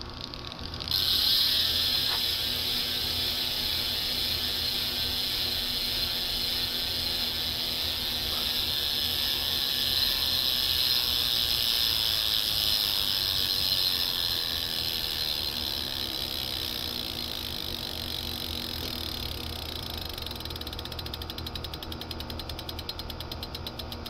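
Hope Pro 5 single-speed rear hub freewheeling as the wheel spins: its 108-point-of-engagement pawls make a fast, high buzz. The buzz starts about a second in, slowly fades, and breaks into separate rapid clicks near the end as the wheel slows.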